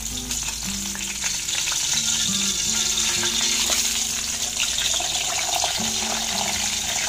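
A whole golden pompano sizzling steadily in hot cooking oil in a pan as it fries on its second side, with soft background music.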